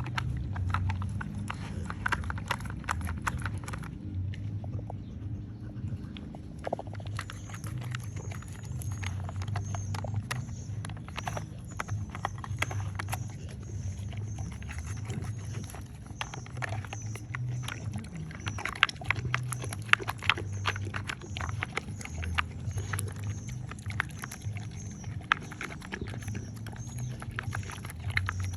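A dog pushing and nosing the plastic bricks and sliders of a Nina Ottosson Brick puzzle toy: irregular clattering clicks and knocks of plastic, briefly thinner about four seconds in, over a steady low hum.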